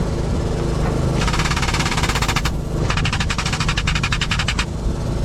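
Engine running steadily, with two bursts of rapid mechanical rattling near the middle, each a second or more long.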